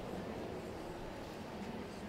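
Steady background noise of a large indoor hall, with faint indistinct voices.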